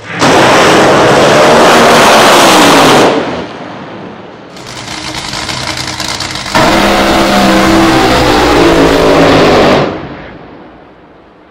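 Top Fuel dragster's supercharged, nitromethane-burning Hemi V8 at full throttle in two very loud blasts of about three seconds each, a few seconds apart, with a lower engine noise between them. The sound dies away near the end.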